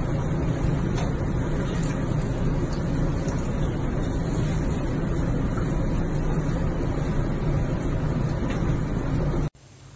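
Steady rushing, churning of water in a bathtub, with a low hum under it. It cuts off abruptly near the end.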